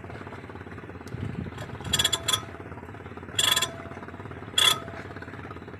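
Diesel fuel injector on a hand-lever nozzle tester popping open as the lever is pumped: short hissing spray bursts with a whistling tone, a quick cluster about two seconds in, a longer burst near the middle and a short one later. This is the injector's opening and spray being tested. A low engine hum runs underneath.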